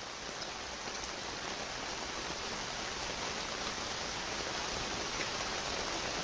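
Steady rain falling, an even hiss of drops on a hard surface that slowly grows louder.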